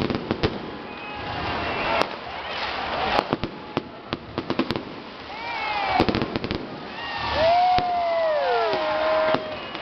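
Street fireworks and firecrackers going off around a crowd: scattered sharp bangs and cracks, a rapid string of them a few seconds in and another cluster about six seconds in, with long whooping cries from people in the crowd rising and falling over the din.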